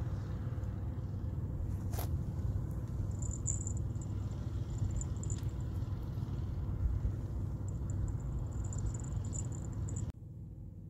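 Wind buffeting the microphone outdoors: a steady low rumble. A faint high-pitched chirping comes and goes over it, and there is a single sharp click about two seconds in. The rumble drops off abruptly near the end.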